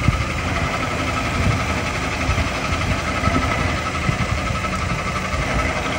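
Workshop machine tool running steadily: a motor hum with a constant high whine and irregular low knocks underneath.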